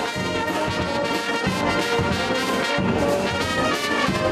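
Brass band playing a tune together, with trumpets and saxophones.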